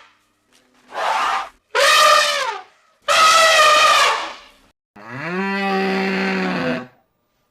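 A series of four animal calls with short gaps between them: a brief rough one, two higher calls that fall in pitch, and a lower, steadier call near the end.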